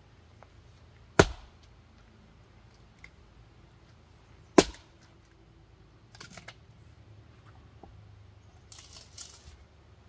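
An axe splitting firewood: two sharp, loud chops about three and a half seconds apart, followed by lighter knocks and rustling near the end.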